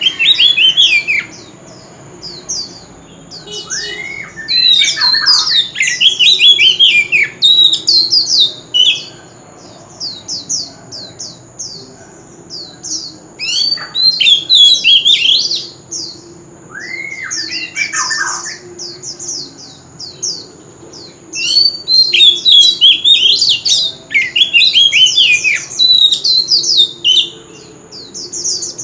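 Oriental magpie-robin singing: loud phrases of rapid, sweeping whistled notes in several bursts with short pauses between. A steady thin high tone runs underneath.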